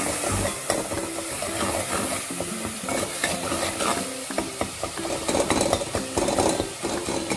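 Tomato and spice masala sizzling in hot oil in a metal pot while a metal spoon stirs and scrapes through it. The spoon clicks against the pot several times in the second half.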